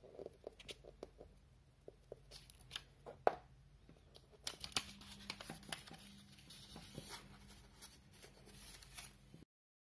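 Office paper rustling and crinkling as long paper petals are folded in half and pressed down, with scattered small clicks and taps and a sharper click a little over three seconds in. The sound cuts off abruptly near the end.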